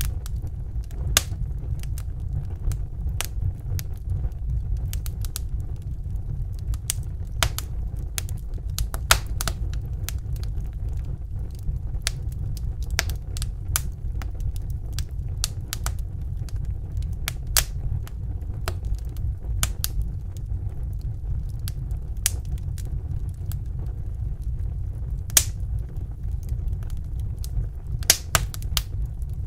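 Wood fire in a fireplace crackling: irregular sharp pops and snaps, a few of them louder, over a steady low rumble.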